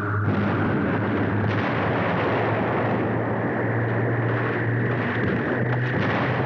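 Phaser cannon sound effect: a steady, rushing, rumbling blast that cuts in abruptly, over a low hum.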